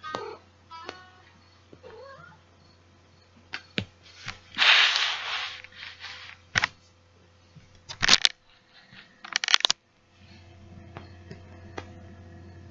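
Domestic tortoiseshell cat meowing a few short times in the first two seconds, followed by rustling and sharp knocks as the cat moves on the bedding and is handled, the loudest rustle about five seconds in.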